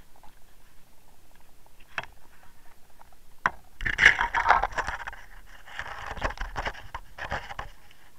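Underwater camera being hauled out of the water: two sharp clicks, then from about four seconds in a loud stretch of splashing and scraping as the housing breaks the surface and is lifted against the boat.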